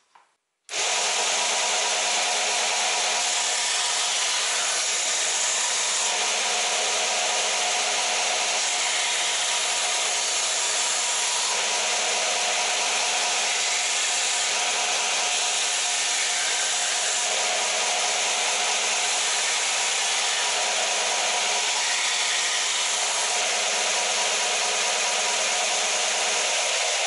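Warrior W0506 combination belt-and-disc sander running steadily, its sanding belt rasping on a length of wood held against it over the motor's steady hum. The sound cuts in abruptly just under a second in.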